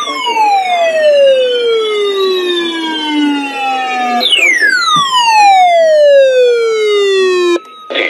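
Layered siren-like tones falling steadily in pitch, twice: a long downward sweep, then a sudden jump back up about four seconds in and a second fall that cuts off abruptly near the end.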